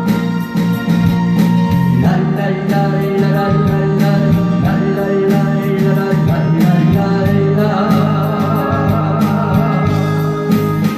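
Ballad music played through a PA system: a backing track with a steady beat, with singing over it.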